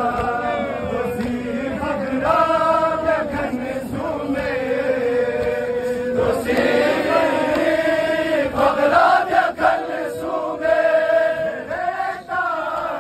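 Men's voices chanting a noha, a Shia mourning lament, together in long held, wavering sung lines.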